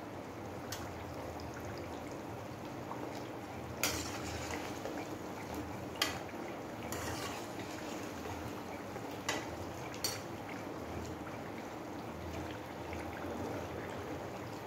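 Mini kachoris deep-frying in hot oil in a steel kadhai, a steady sizzle as they brown toward golden. A perforated metal skimmer clinks against the pan a few times as they are turned, loudest about four and six seconds in.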